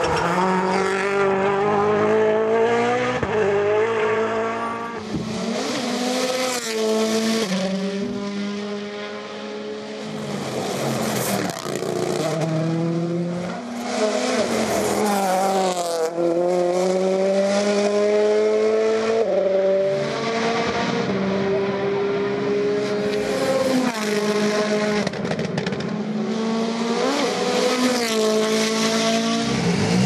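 Rally cars at full attack on a tarmac stage. Their engines rev hard and rise in pitch through the gears, dropping back at each shift and under braking, again and again, with tyre squeal through the corners.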